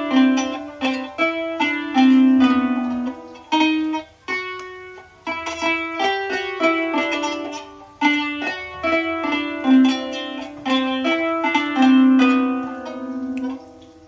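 Kanun (Turkish zither) played by plucking with finger picks: a melody of bright plucked notes, some held notes sustained with fast repeated plucks. The playing stops and the last notes ring away shortly before the end.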